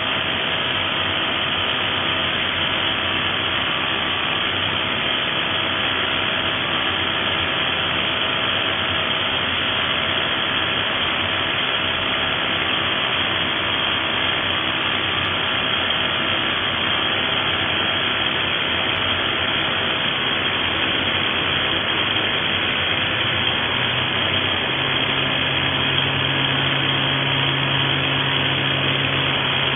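Xcort XZC06-26 SDS-Plus electric rotary hammer drilling into concrete: the drill's motor and hammer action run steadily as the bit bores down. A low hum joins near the end.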